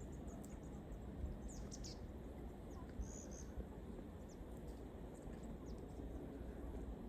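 Small songbirds giving short, high chirps and calls at irregular intervals, over a steady low background rumble.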